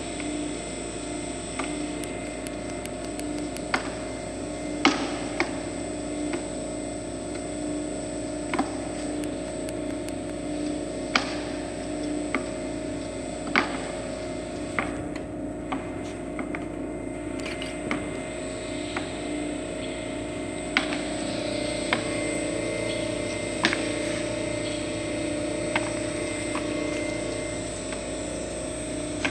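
Small electric screw oil press running while cold-pressing flaxseed: a steady motor-and-gear hum, with sharp clicks at irregular intervals of a second or two.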